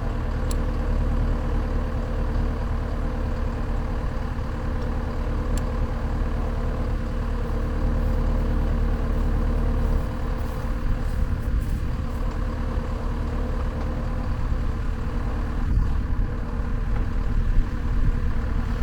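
Skid steer loader's engine running steadily, with a few faint clicks over it.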